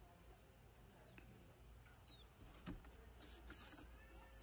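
Emperor tamarins giving short, high, thin calls that fall in pitch, a few about a second in and again around two seconds in. Then scratching and rustling, with sharp clicks, as they move about inside a small box house.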